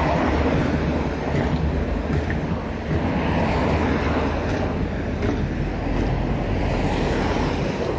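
Steady road traffic noise from cars passing on the street beside the pavement, with a low rumble of wind on the microphone.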